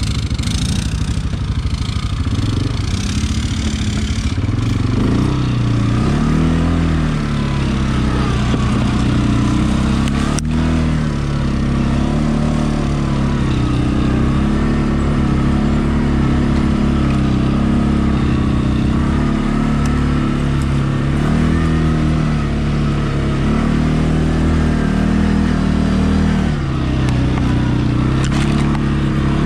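CFMOTO ATV engine running under load on a climbing dirt track, its revs rising and falling with the throttle. There is a single sharp knock about ten seconds in.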